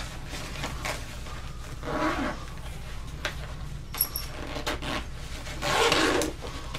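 A nylon backpack being handled and searched by hand: fabric rustling, zipper noise and small clicks, with two louder rustling swells about two and six seconds in.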